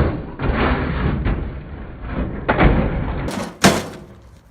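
Loud crashing blows on a microwave oven as it is being smashed: a heavy hit at the start, rattling crashes, another hit about two and a half seconds in, and a sharp crack near the end.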